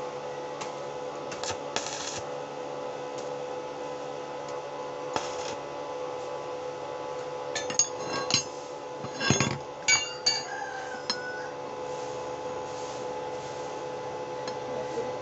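Steel pieces clinking and clanking against each other and against tools several times, with ringing, between about 8 and 11 seconds in, while pieces cut from an old car leaf spring are fitted and tacked together. A steady electrical hum runs underneath, with short buzzy crackles about two and five seconds in.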